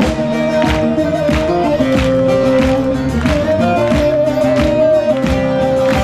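Live band music with a held melody line over a steady beat, an instrumental passage.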